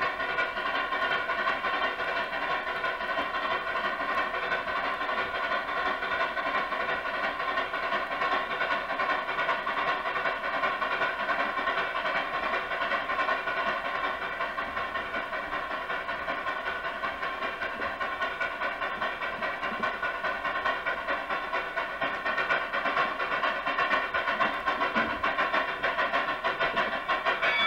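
HO scale model train running along layout track: a steady pitched drone with a fast, even pulsing, easing off in the middle and growing louder near the end.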